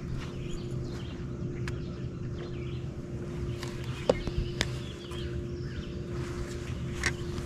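Steady hum of a bow-mounted electric trolling motor, with birds chirping in the background and a few sharp clicks about four and seven seconds in.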